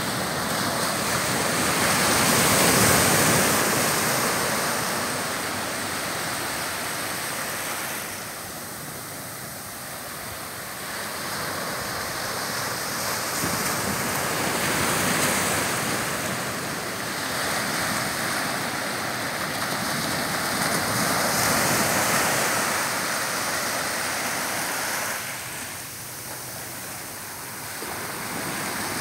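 Small ocean waves breaking and washing up the shore, the surf hiss swelling and easing over several seconds at a time.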